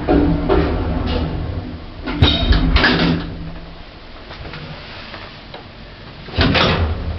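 Old passenger lift in operation: doors sliding and clunking, with a sharp click about two seconds in, a quieter stretch in the middle, then another rattling slide near the end.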